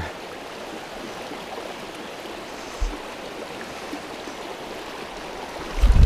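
Muddy rainwater runoff rushing steadily through a small stream crossing, an even wash of moving water. There is a single low thump about three seconds in and a low rumble near the end.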